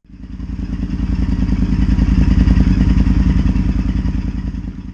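Honda Varadero 1000's V-twin engine idling with a steady, even pulse, running to warm the oil so it drains freely. The sound fades in over the first second.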